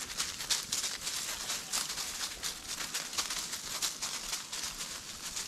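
Footsteps and rustling in dry leaf litter: an uneven run of crunching and crackling as feet move through the fallen leaves.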